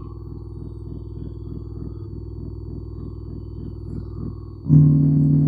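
RDS 12-inch SPL subwoofer in its box playing a low-frequency test tone, a pulsing low hum. About four and a half seconds in, a much louder, fuller low sound cuts in suddenly.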